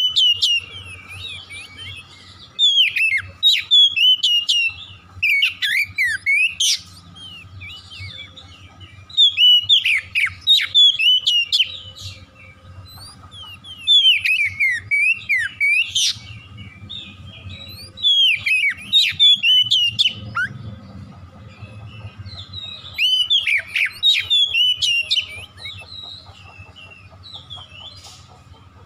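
Oriental magpie-robin singing: loud bursts of rich whistled phrases with quick up-and-down sweeping notes, about every three to five seconds, with short pauses between.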